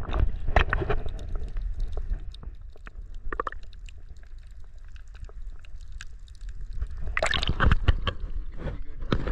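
Water sloshing and gurgling close to the microphone, with scattered small clicks and a louder burst of splashing about seven seconds in.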